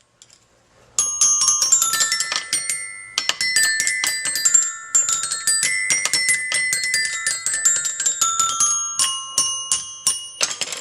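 Instrumental break in a song: after a brief pause, quick runs of bright, ringing struck notes start about a second in.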